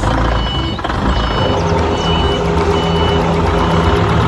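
Hangcha forklift reversing with a load. Its engine runs with a steady rumble, under a high reverse-alarm beep that repeats a little under twice a second.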